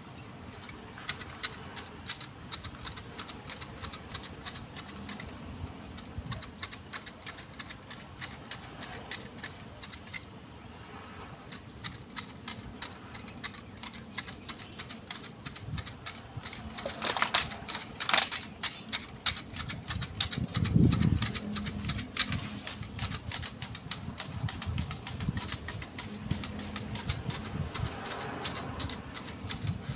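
Hand hedge shears snipping rapidly through the small leafy stems of a Fukien tea hedge: a quick run of sharp clicks, several a second, growing louder about halfway through.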